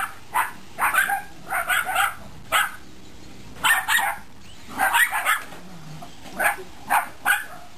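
A small dog barking repeatedly at a remote-control car it is chasing, in short, sharp barks that come singly and in quick clusters at irregular intervals.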